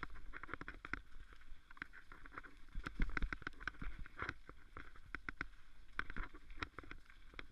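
Mountain bike riding fast down a rough forest trail, heard from a camera mounted on the bike: a constant irregular clatter of rattles and knocks from the bike over bumps and roots, over a low rumble of tyres on dirt.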